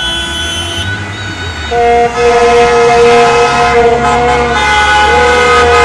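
Several car horns honking at once in street celebration of a football win, over low traffic rumble; from about two seconds in one long, loud blast is held steady.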